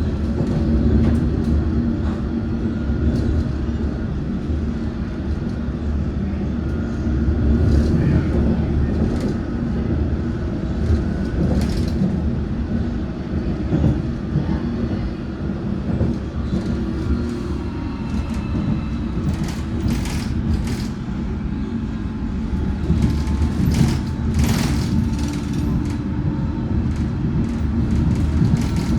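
London Underground Metropolitan line train (S8 stock) running between stations, heard on board: a steady low rumble of wheels on rail, a faint whine from the traction motors, and scattered clicks and knocks from the track.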